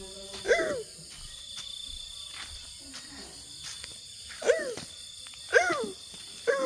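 Short whining calls, each rising then falling in pitch, repeated about once a second with a pause of a few seconds in the middle. Crickets chirr steadily underneath.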